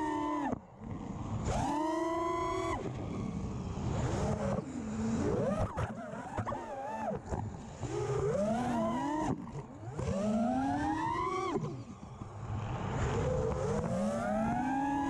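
FPV freestyle mini quadcopter's brushless motors and props whining, the pitch sweeping up and falling back again and again as the throttle is punched and chopped, with a few sharp drops to low throttle.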